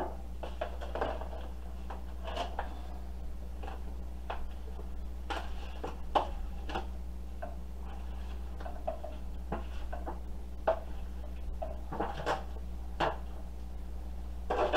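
Metal tongs clicking and scraping against a disposable aluminium foil pan as seared beef is moved into a skillet, with irregular clinks and crinkles of the foil over a steady low hum.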